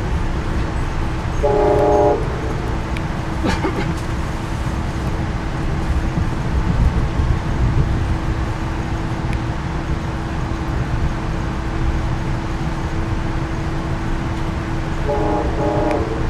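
Moving passenger train heard from inside the car: a steady rumble of wheels on rail with a faint steady hum. Two short train horn blasts sound, one about a second and a half in and one near the end.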